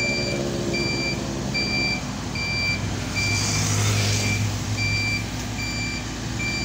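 Reversing alarm of a tracked rice combine harvester beeping steadily, about one beep every 0.8 s, over the machine's engine running as it backs up. A louder swell of engine noise comes about three to four seconds in as a motorcycle passes.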